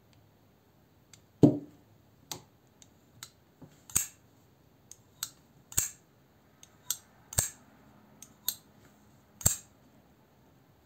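Sharp metallic clicks and taps from a Ruike P801-SF folding knife and a ratchet screwdriver being handled, about a dozen at uneven spacing, with a heavier knock about a second and a half in.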